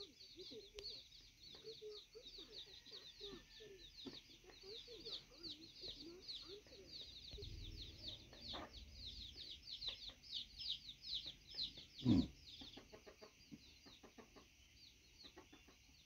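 A brood of young chicks peeping continuously in quick, high, falling chirps while the mother hen clucks softly and low; the peeping thins out near the end. One brief louder sound comes about twelve seconds in.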